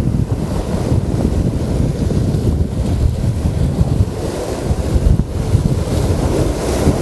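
Strong gusty wind buffeting the microphone in a heavy low rumble, over the wash of waves. A brighter rush of surf rises near the end.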